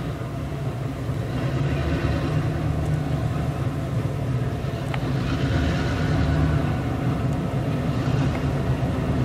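Diesel locomotive engines running with a steady low rumble as the locomotives roll slowly past.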